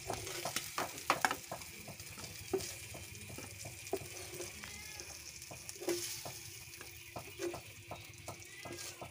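Marinated chicken pieces frying in butter in a pan: a steady sizzle, broken by irregular clicks and scrapes of a spatula against the pan as the pieces are stirred and lifted out.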